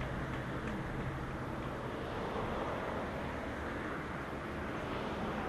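Steady outdoor background noise: a low rumble under a faint, even hiss.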